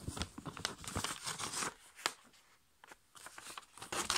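Sheet of A5 copy paper rustling and crackling as hands fold and crease it, with a short quiet pause about halfway through.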